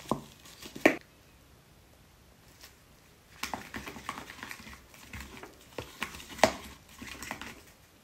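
A plastic squeeze bottle squirting its contents into a dye bowl, with two short loud sounds in the first second. From about three and a half seconds in, a tint brush stirs and scrapes the mixture in a plastic dye bowl, with many clicks and taps and one louder tap over halfway through.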